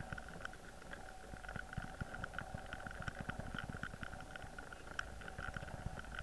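Muffled underwater noise picked up through a submerged camera's housing: a steady high hum with many irregular low knocks and crackles.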